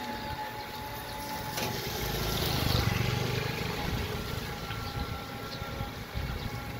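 A motor vehicle engine running with a steady low rumble, growing louder about two to three seconds in and then easing off.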